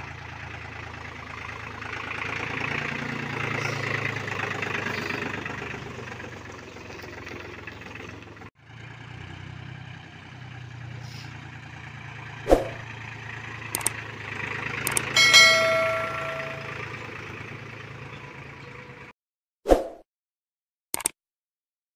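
Powertrac Euro 47 tractor's diesel engine running steadily while towing a thresher, with a couple of sharp clicks and a bell-like ding about two-thirds through. Near the end the engine cuts off to near silence broken by a few short clicks.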